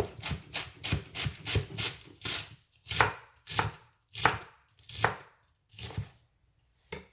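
Kitchen knife chopping vegetables on a cutting board: a run of sharp strokes, quick at first and then slowing.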